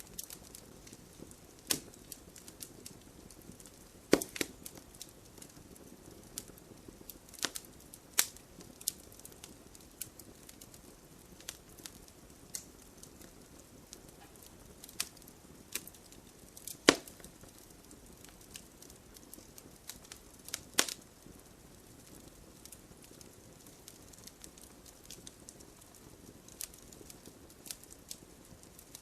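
Wood fire crackling: irregular sharp pops and snaps over a faint steady hiss, with a few louder pops scattered through.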